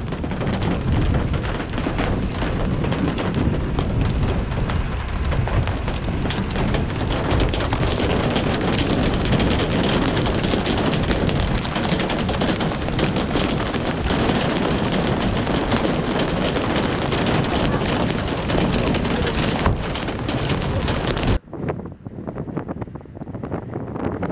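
Strong wind rushing across the microphone, a dense steady roar broken by many short buffets. About three seconds before the end it drops abruptly to a quieter, duller wind rush.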